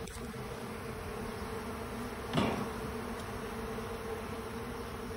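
Honey bees humming steadily in a swarm around an open hive box, a low even drone. A short thump comes about two and a half seconds in.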